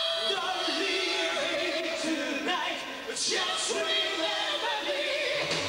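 Hard rock band playing live, heard from the audience, with singing to the fore and little bass. Fuller band playing, with guitar, comes in right at the end.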